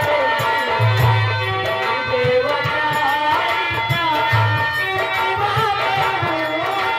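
Live Indian folk stage music: a singer's sad, wavering vocal line through a microphone and PA over dholak and barrel-drum beats.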